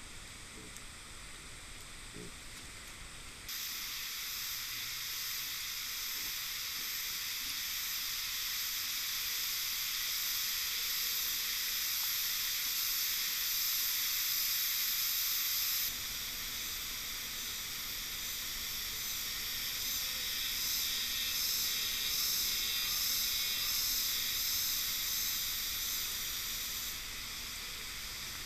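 Steady high-pitched hiss with no distinct calls or knocks, getting louder about three and a half seconds in and dropping slightly about sixteen seconds in, with a faint pulsing in it in the later part.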